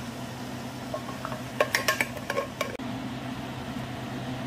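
Cooking utensils clinking and knocking against a wok, a quick cluster of sharp clinks about one and a half to nearly three seconds in, over a steady low hum.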